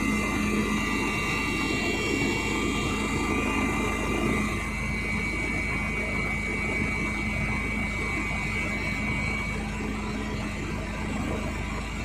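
Helicopter in flight heard from inside the cabin: a steady drone of rotor and engine, with a constant low hum and a thin high whine.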